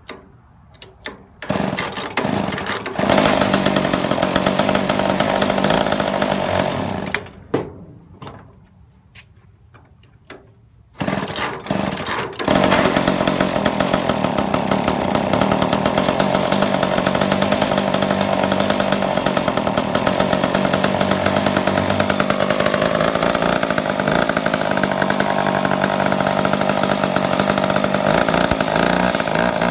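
McCulloch Mac 10-10 two-stroke chainsaw pull-started warm without choke: it fires after a couple of pulls, runs a few seconds and dies about seven seconds in, then after more pulls catches at about twelve seconds and keeps running steadily.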